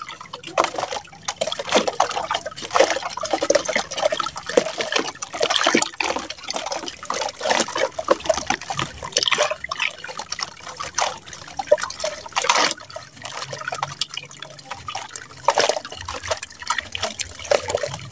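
A water-soaked sand slab crumbled by hand over a tub of water, wet clumps and grains dropping into the water with irregular splashes, crackles and trickling.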